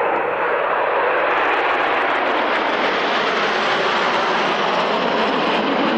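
Formation of jet aircraft, the Patrouille de France's Alpha Jets, making a low flypast: steady, loud jet engine noise that grows a little brighter about a second in and holds level.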